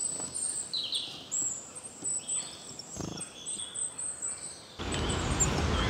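Quiet outdoor ambience: faint bird chirps and a thin, high-pitched steady buzz. A single soft thump comes about three seconds in, and a low rumble of noise on the microphone sets in near the end.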